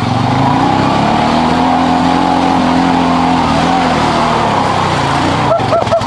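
Honda Pioneer 500 side-by-side's single-cylinder engine running as it drives along a muddy trail, its pitch rising and falling gently with the throttle. Brief curved high-pitched whines come in near the end.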